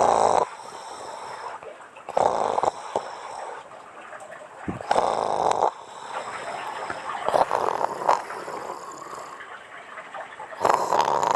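A woman snoring, with about five snores, one every two to three seconds.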